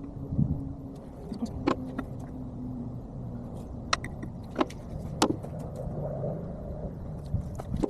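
Scattered sharp metal clicks and knocks from tool work on a hydraulic cylinder, about five of them spread through, over a steady low hum, all in sped-up playback.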